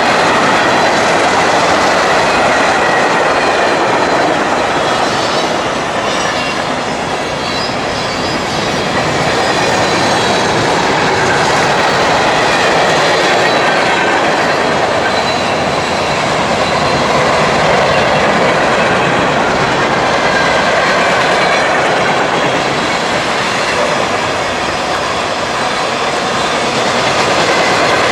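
CSX freight train's cars rolling past, a loud, steady rumble and clatter of steel wheels on the rails that swells and eases a little, with a faint high wheel squeal at times.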